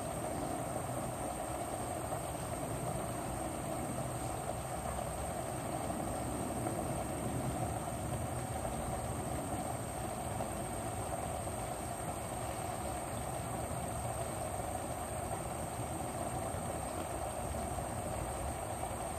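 Chicken pieces cooking in a pan on the stove, giving a steady, even rushing noise with no separate pops or crackles.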